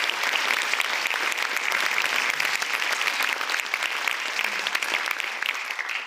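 Audience applauding: a dense, steady clapping that slowly dies down near the end.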